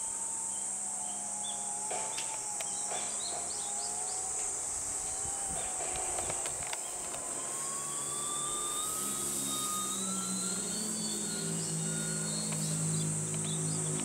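Brushless electric motor and 13-inch propeller of a Skywing Sbach 342 EPP RC aerobatic plane whining in flight. The pitch drifts down over the first few seconds, then climbs with the throttle, and a lower propeller drone builds through the second half. A steady high insect buzz continues behind it.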